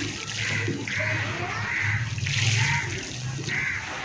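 Dry, dusty grit and powder poured in a stream onto a wet slurry puddle, landing and settling in it.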